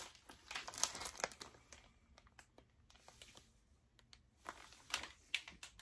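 Thin plastic bag crinkling as it is handled, in quick crackles during the first second or so and again near the end, with a quieter stretch in between.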